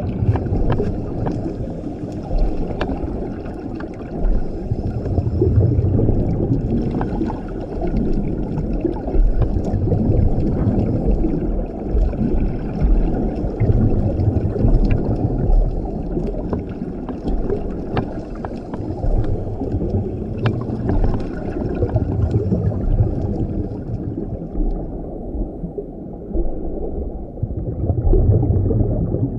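Scuba regulator breathing heard underwater through an action camera's housing: exhaled bubbles gurgle and rumble in surges every few seconds, with scattered faint clicks between breaths.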